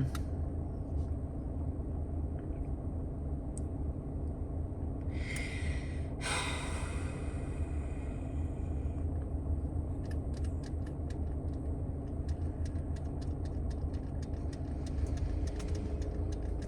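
A steady low rumble, like an engine or a machine running in the background. About five seconds in comes a breathy rush of noise, and later a quick run of small clicks.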